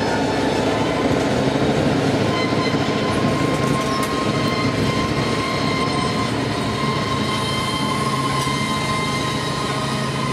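Freight train of tank cars rolling past, the wheels rumbling on the rails with a steady high-pitched squeal.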